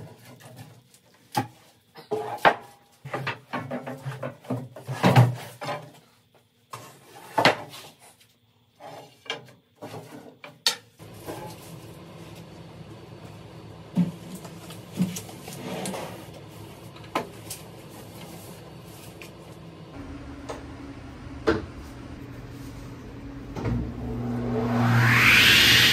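Thick birch slabs knocked and shifted on a workbench, a series of wooden clunks. Then a steady shop-machinery hum with a few knocks. Near the end a sliding table saw's motor starts up, its whine rising quickly.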